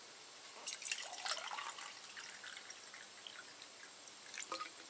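Cold water poured from a plastic water bottle into an enamelled steel camp mug, splashing and trickling, starting about half a second in.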